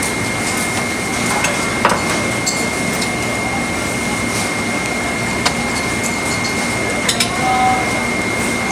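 Butchering at a chopping block: a few sharp knocks and clatters of the blade and tools against the block over a steady background hiss with a thin high whine, including a short cluster of knocks about seven seconds in.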